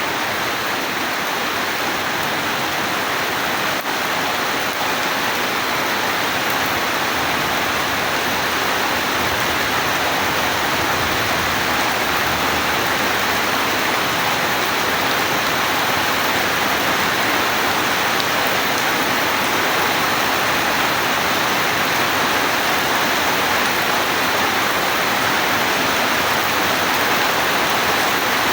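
Heavy rain falling steadily, a dense even hiss that grows slightly louder toward the end.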